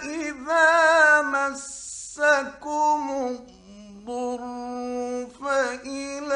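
A male Quran reciter chanting verses in a melodic, drawn-out style, holding long notes that bend and ornament in pitch. There is a short breath about two seconds in, and a lower, softer stretch near the middle.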